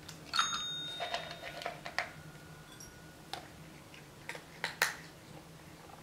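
A small tap-top call bell struck once with a paw, giving a single bright ding that rings on for a couple of seconds. It is followed by scattered clicks and rattles of dry kibble against a ceramic food bowl as the cat eats.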